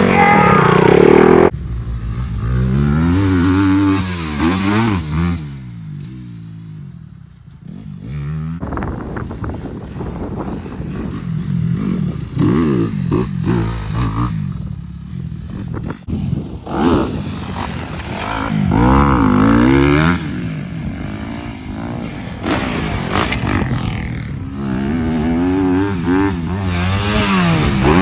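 Dirt bike engines revving up and dropping off again and again, the pitch climbing and falling through the gears, louder and quieter as the bikes come and go.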